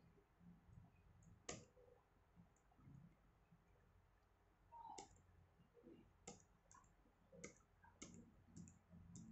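Faint clicks of a computer keyboard's Enter key being pressed again and again. There is one press about a second and a half in, then a run of six or so presses from about five seconds in, a little more than one a second.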